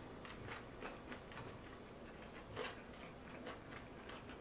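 Faint mouth sounds of chewing fresh spring rolls (rice paper, lettuce and shrimp), heard as scattered soft clicks at irregular intervals.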